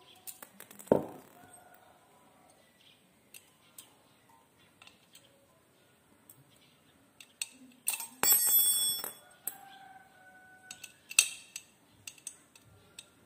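Scattered clicks and metallic clinks from a hex key and a Ka-band VSAT transceiver's metal housing being handled while the bolts holding its neck are undone. There is a dull knock about a second in, and a short burst of bright, ringing metal clinking about eight seconds in.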